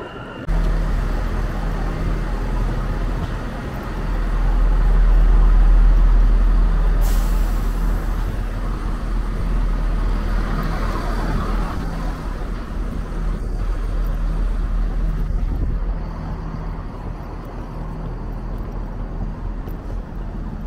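Diesel multiple-unit train engines idling, a steady low engine hum that grows louder from about four to eight seconds in. A short hiss of air comes about seven seconds in.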